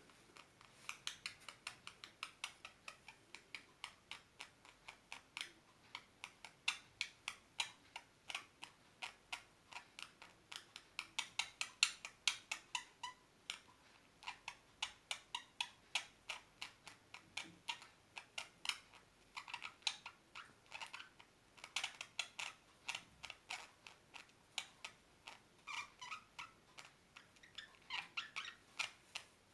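Parrot making a long run of short, sharp calls, about three a second, with a few squeakier pitched calls among them.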